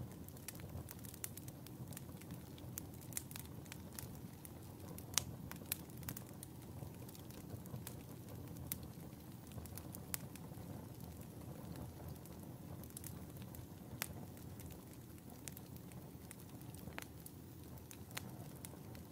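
Wood fire burning in a fireplace, crackling steadily with scattered sharp pops over a low rushing of the flames; a couple of louder pops about five seconds in.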